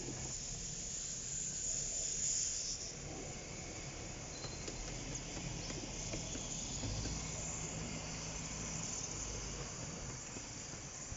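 Steam hissing from a 15-inch-gauge RH&DR steam locomotive as it backs slowly into the yard, with a low rumble that swells midway through and fades again.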